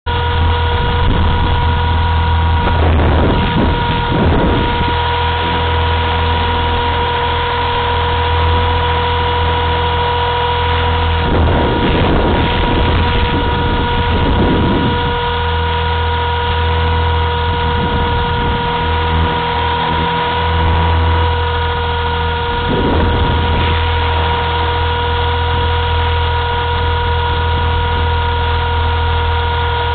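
Blade 230S electric RC helicopter in flight, heard from its onboard camera: a steady high motor and gear whine over a low rotor hum, with gusts of wind on the microphone now and then.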